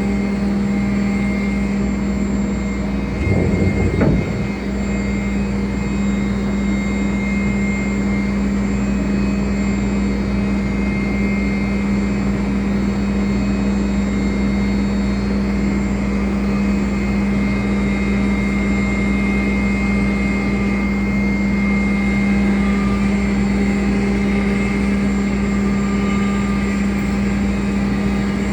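CNC router running steadily with a constant hum, with a brief louder swell about three to four seconds in.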